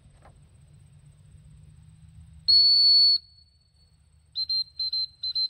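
A dog-training whistle blown by a handler to a retriever. It gives one long, loud, steady blast about two and a half seconds in, typical of the sit/stop signal. Near the end come about six quick short toots, typical of the come-in recall signal.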